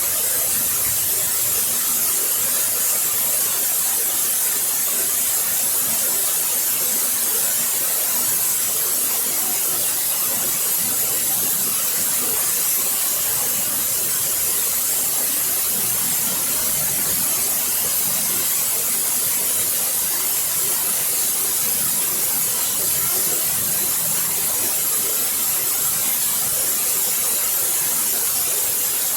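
Waterfall: a steady, even rush of falling and splashing water, heaviest in its high hiss.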